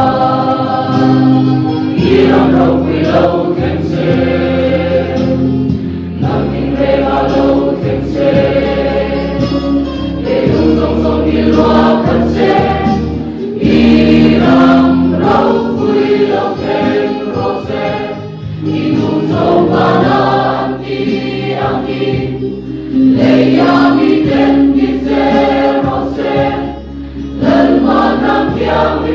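Mixed choir of men and women singing a Christian choral song in harmony, with sustained chords and short breaths between phrases.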